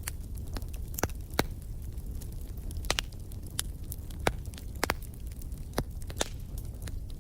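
Wood fire crackling: irregular sharp pops and snaps, a dozen or so, over a steady low rumble of the flames.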